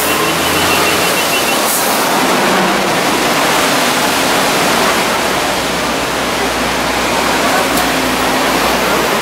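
Steady, loud rushing noise of rain and street traffic, with no clear pitch or rhythm.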